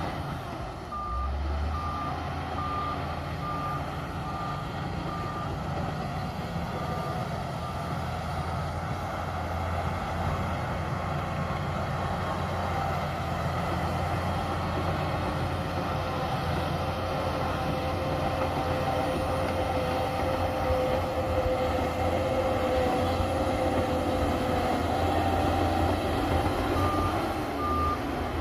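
Shantui DH17C2 bulldozer's diesel engine running steadily under load, with a steady whine over it in the second half. A reversing alarm beeps about one and a half times a second for the first several seconds, stops, then starts again near the end.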